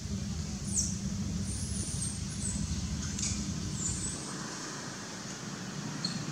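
Steady low outdoor rumble that eases a little after about four seconds, with a few short, high-pitched chirps in the first four seconds.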